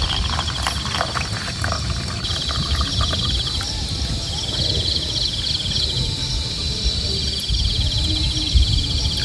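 Insects trilling in a fast, even pulse, breaking off briefly a couple of times, with a second, higher insect chirping in short bursts around the middle. A low rumble runs underneath, and a few clicks sound in the first two seconds.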